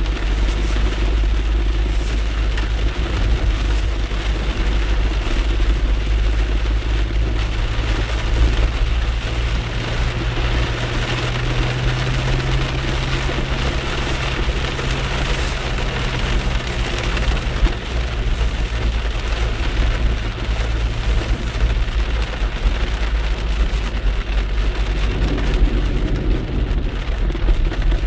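Heavy rain falling on a moving car, heard from inside the cabin over a steady engine hum and the rumble of tyres on the wet road.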